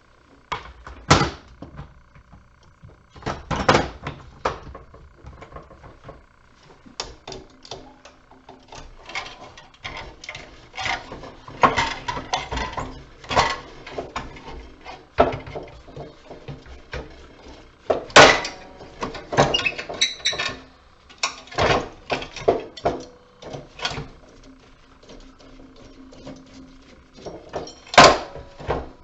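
Irregular clanks, knocks and rattles of metal parts and hand tools as a light fixture is taken apart for scrap, with a few louder strikes about a second in and near the end.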